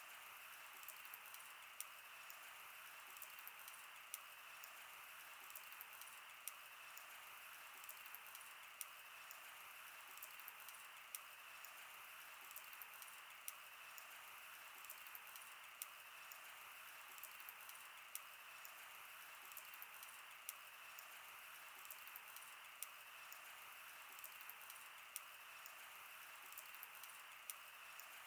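Wood campfire burning with a steady soft hiss and frequent small, irregular crackles and pops.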